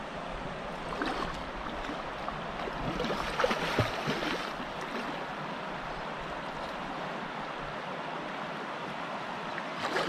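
Shallow tidal creek water running steadily, with a few brief splashes about three to four seconds in.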